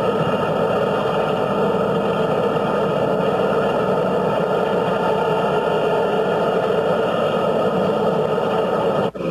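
Steady engine and road noise of a moving car pacing the train, with no clear rhythm; it drops out suddenly for an instant near the end at a film splice.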